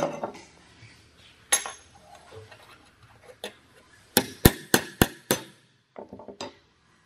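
Small hammer tapping a steel trigger plate against a steel bench plate to straighten a bend out of it: five quick, sharp metallic strikes about a third of a second apart, after a single clink earlier and a few light clicks at the end.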